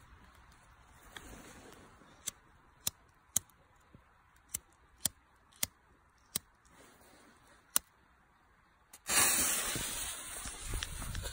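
About eight sharp clicks while the fuse of a Jorge Bazooka 30 mm crash-ball mortar tube is being lit. About nine seconds in, the fuse catches and sputters with a loud, spraying hiss that carries on.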